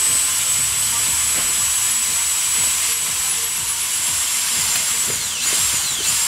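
Cordless DeWALT reciprocating saw cutting through a log, its motor whining steadily under the rasp of the blade in the wood; near the end the pitch wavers and drops as the saw loads up.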